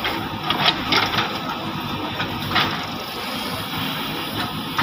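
Diesel engines of two JCB 3DX backhoe loaders running under load, with several sharp knocks and clatters in the first few seconds as a bucket unloads soil into a tractor trolley.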